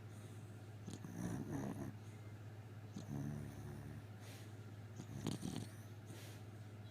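A beagle snoring in its sleep: three snores about two seconds apart, the middle one with a buzzing tone.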